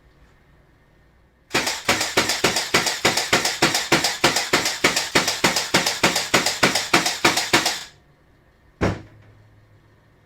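A rapid, even series of sharp knocks, about four or five a second, lasting about six seconds, then a single knock near the end.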